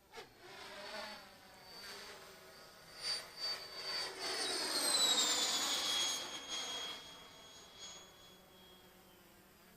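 Electric ducted-fan jet, a 3D-printed Mir-25 Boxfat on a 145 mm fan, making a fast pass: a high whine that swells to its loudest about five seconds in, drops in pitch as the plane goes by, then fades away.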